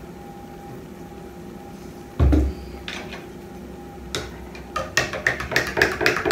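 A bottle set down on a table with one loud thump about two seconds in, then a metal spoon clinking quickly against a drinking glass, about four or five taps a second, as a drink is stirred.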